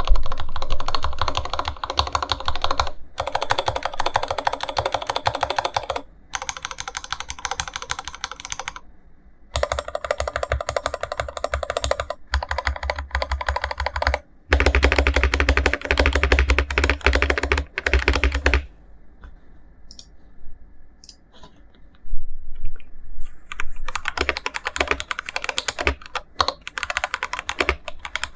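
Typing on an IQUNIX F97 mechanical keyboard with TTC Gold Pink linear switches: fast runs of keystrokes clacking in quick succession. The typing thins out to a few scattered key presses for a few seconds past the middle, then picks up again.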